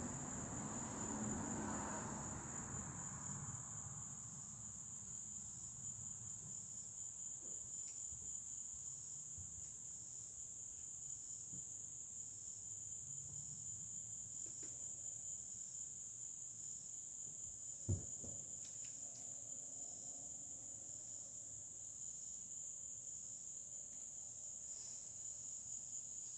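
Crickets trilling in a steady, high-pitched chorus, with a single sharp knock about eighteen seconds in.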